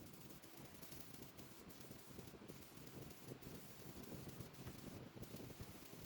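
Near silence: a faint, even hiss with a weak low rumble, and no distinct sound events.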